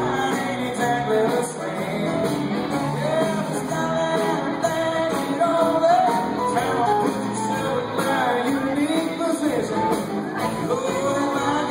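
Live country band playing through a concert PA: electric guitars and drums, with a male lead vocal.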